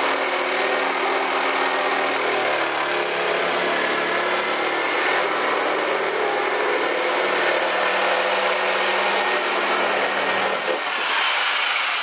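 Corded jigsaw running steadily, its blade sawing a round hole through the plastic lid of a picnic cooler: a constant motor whine over the rasp of the cut. The deeper part of the motor sound drops away near the end.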